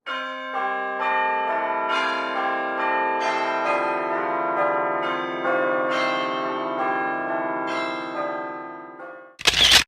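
A bell-like chiming melody: ringing tones struck one after another, each held and overlapping the next. It breaks off near the end into a short, loud burst of noise.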